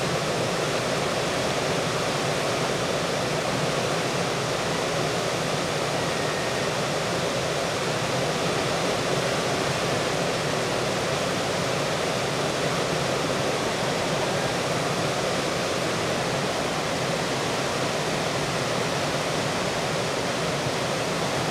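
River rapids rushing over rocks: a steady, unbroken rush of whitewater.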